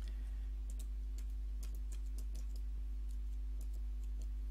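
Typing on a computer keyboard: scattered, irregular keystrokes over a steady low electrical hum.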